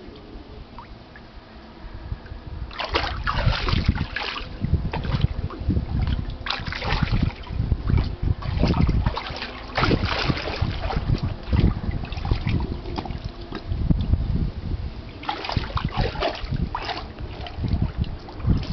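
An American Staffordshire terrier splashing in a pool of water, in irregular bursts with heavy low thumps that start about three seconds in and go on with short lulls.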